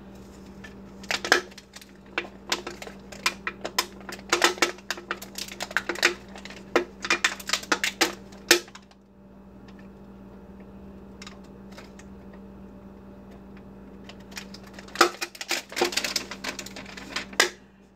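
Plastic shrink-sleeve label being picked at and peeled off an aluminum drink can: quick crinkling and clicking in two spells, with a pause of several seconds in the middle.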